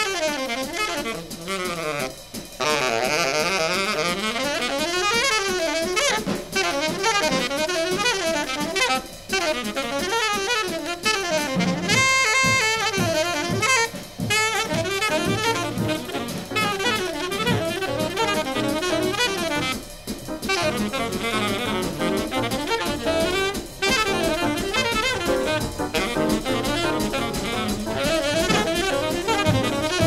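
Jazz combo playing: a saxophone lead over drum kit, with brass.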